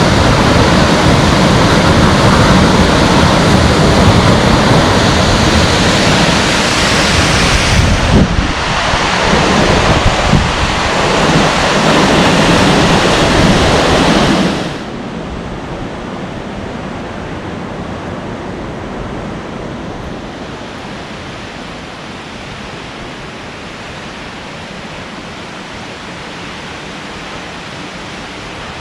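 Waterfall rushing: a loud, full rush for about the first fifteen seconds, then dropping suddenly to a quieter, steady rush.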